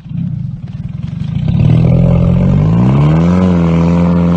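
Pontiac Grand Prix engine catching on a roll start, with an engine the driver fears is about to lock up. It fires unevenly for about a second and a half, then runs steadily and revs up about three seconds in, holding at a high, steady speed.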